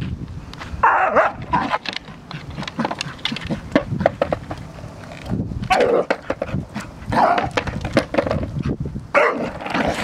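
An Entlebucher puppy barking several times in short bursts, while a skateboard's wheels rumble and clatter over asphalt.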